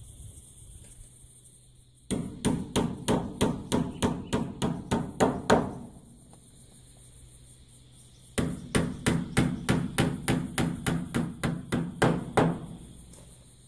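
Small hammer tapping panel pins into wooden packers around a window frame, in two quick runs of taps about five a second, with a pause of a few seconds between them. A faint steady high-pitched buzz is heard in the quiet stretches.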